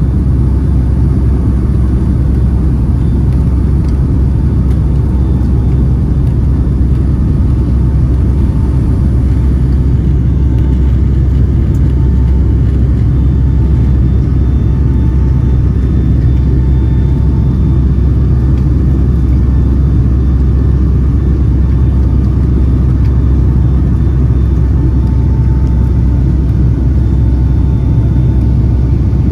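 Steady, loud low drone inside the main cabin of a Boeing 757-200 airliner, from its engines and the air rushing past the fuselage. It stays even throughout, with faint thin tones above the rumble.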